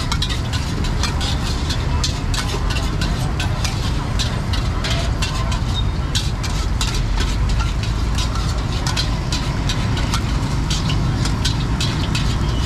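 Metal spatulas and ladles scraping and clinking against steel woks in rapid, irregular strokes while fried rice is stir-fried, over a steady low rumble from the gas wok burners.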